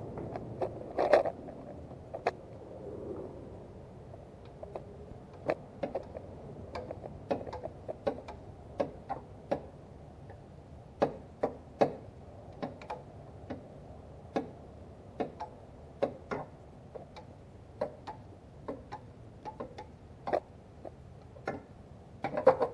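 Sharp metallic clicks at irregular spacing, roughly one or two a second, from a hand tool working the bolts off a car engine's timing cover, with a louder clatter about a second in and again near the end.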